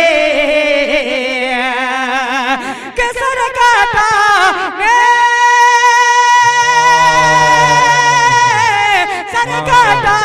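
A man singing a line of a naat in tarannum, the melodic chant of Urdu poetry recitation. He draws out the end of the line in a wavering, ornamented run, then holds a long steady high note. A second, lower tone joins for the last few seconds.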